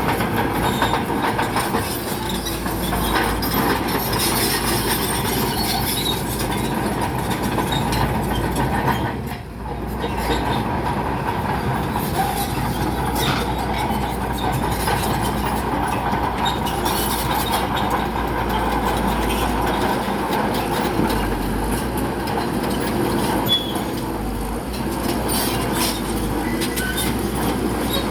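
Crawler bulldozer pushing rock: its engine running under load while the steel tracks clank and squeal, continuous, with a brief drop in level about nine seconds in.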